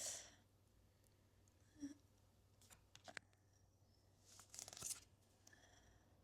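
Faint handling of tarot cards: a few soft clicks as cards are turned over, then a longer rustle of cards sliding against each other near the end.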